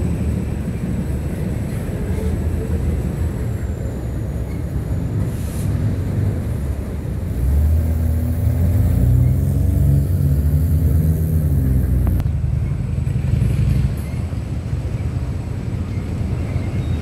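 Long freight train of loaded trash cars rolling steadily over a steel railroad bridge, a continuous low rumble. A road vehicle's engine rises louder in the middle, then cuts off abruptly.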